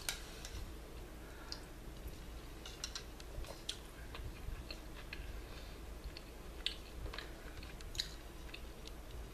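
Close-miked chewing of a mouthful of tortilla soup, with small irregular mouth clicks every second or two.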